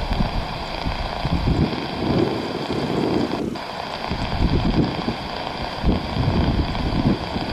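Widebody twin-engine jet airliner taxiing, its engines giving a steady whine of several held high tones, with gusty wind buffeting the microphone.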